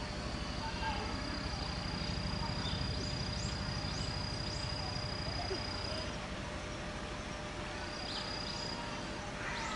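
Outdoor animal ambience: an insect's steady high-pitched trill that stops about six seconds in and returns briefly near the end. A few short falling chirps and a low rumble run underneath.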